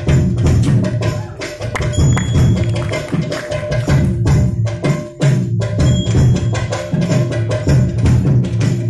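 Live hand-drum percussion: a barrel-shaped drum played in a fast, driving rhythm of sharp strokes, with a steady held tone underneath.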